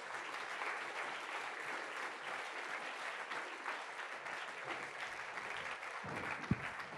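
Audience applauding steadily, with one brief low thump near the end.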